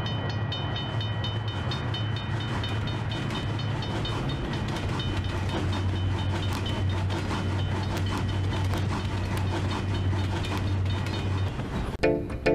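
Train sound effect: a level-crossing bell ringing in rapid, regular strikes over the steady rumble and clatter of a passing train. The rumble stops near the end, and plucked-string music begins.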